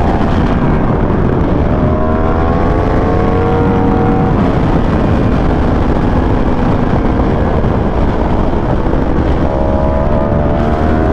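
Motorcycle engine heard from on board at speed under heavy wind rush, its pitch climbing under acceleration about two seconds in and again near the end.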